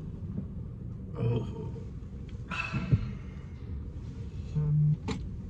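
Men sipping drinks from paper cups inside a car, with a breathy exhale near the middle and a short low hum near the end, followed by a sharp click, over a low steady rumble.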